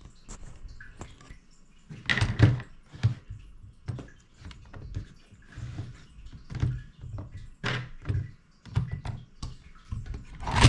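Irregular light knocks and clicks of an opened Dell G5 laptop's plastic chassis and small tools being handled and turned on a desk, loudest about two seconds in and again near the end.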